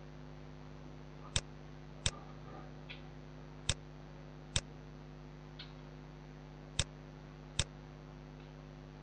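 Computer mouse clicking in pairs: three pairs, each two sharp clicks under a second apart, with a fainter tap after each pair, over a steady low electrical hum.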